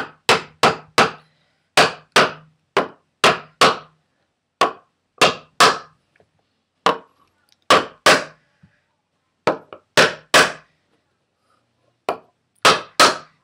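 Rubber mallet striking a piece of wood laid over a Neco headset cup, about two dozen sharp knocks in uneven runs with short pauses, pressing the top cup into a scooter's head tube.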